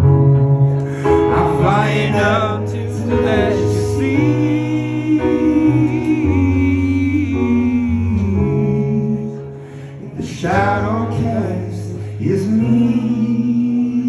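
Male lead singer singing live into a microphone in long held, wavering notes over a sustained instrumental accompaniment, with the chords changing every few seconds; the music dips briefly near the middle before the voice comes back in.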